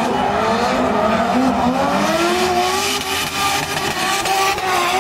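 Drift car engine revving, its pitch climbing in several successive pulls, over the hiss of tyres sliding and squealing.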